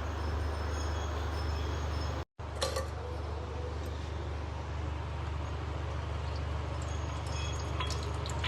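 Steady hiss of food frying in oil in a pot on a stove, with a low hum under it. There is a sharp metallic clink a few seconds in, and a few light clinks of a utensil against the pot near the end.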